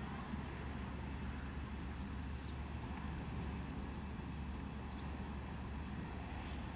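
Outdoor ambience: a steady low rumble with two short, high, falling bird chirps, about two and a half seconds apart.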